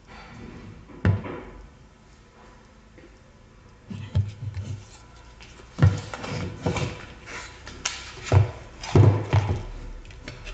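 A cardboard product box handled on a wooden tabletop: a sharp knock about a second in, then a run of irregular knocks, scrapes and rustling as the box is turned over and its end flap opened.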